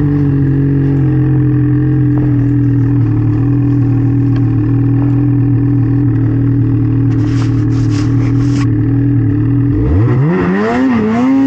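Snowmobile engine running at a steady high speed, with a few short scraping rustles a little past halfway. Near the end the pitch drops and swings up and down as the throttle is worked, then holds steady again.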